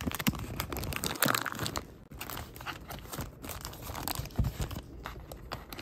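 Grey plastic poly mailer bag crinkling and tearing as it is pulled open by hand, with dense crackly rustling that is loudest a little over a second in.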